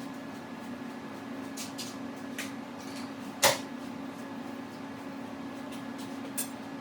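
A machine runs with a steady hum, with scattered light clicks and one sharp knock about three and a half seconds in, typical of tools and wood being handled.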